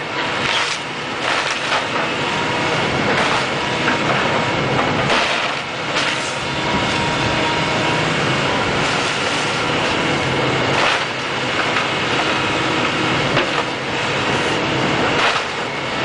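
A heavy Caterpillar machine running steadily while wood and debris crack and crash again and again as a house is torn down.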